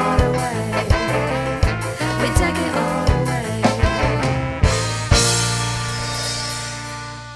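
Ska band music with no singing: the instrumental closing bars with regular drum hits, then about five seconds in a final chord struck and held, fading slowly.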